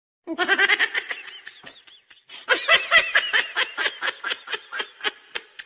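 Calico cat chattering: a rapid run of short, high clicking chirps, about eight to ten a second, breaking off briefly and then starting again for a longer run.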